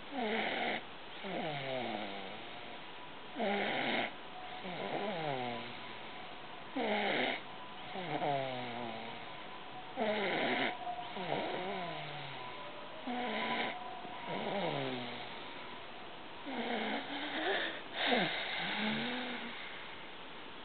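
Snoring in a steady rhythm of slow breaths. Each breath brings a short hiss and a whistling tone that falls in pitch.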